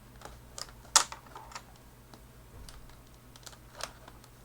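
Plastic screen bezel of a Toshiba Satellite C650D laptop being pried off, its clips snapping loose in a series of sharp clicks, the loudest about a second in.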